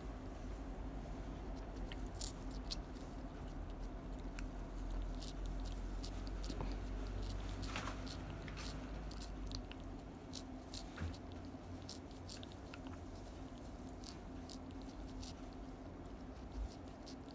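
A tabby cat licking and smacking at a squeeze tube of lickable cat-treat paste, making many short, irregular clicks.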